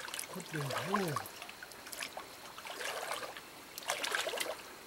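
Shallow stream water sloshing and trickling around wading legs and a hand groping along the streambed, with a run of splashing about four seconds in. A short vocal sound from a person near the start.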